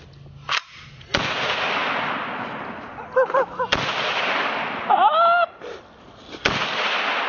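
Gunshots outdoors: a lighter shot about half a second in, then three loud shots a few seconds apart, each trailing off in a long rolling echo.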